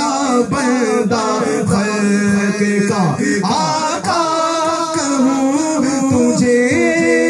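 Men singing an Urdu naat, a devotional poem in praise of the Prophet, in long held, bending melodic lines into a microphone.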